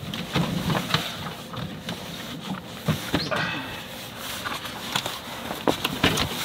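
Plastic storage crates and camping gear being moved around in a car's cargo area: scattered knocks, clicks and rustling, with a short high-pitched squeak about three seconds in.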